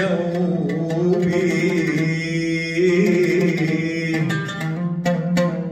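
Oud played with a man singing a long, wavering vocal line in an Arabic song, near its close. A couple of sharp plucked oud strokes come about five seconds in.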